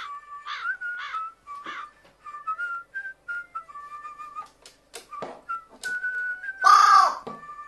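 A whistled tune of clear, stepping notes runs throughout, with scattered sharp clicks. About a second before the end, a carrion crow gives one loud, harsh 'wa' call.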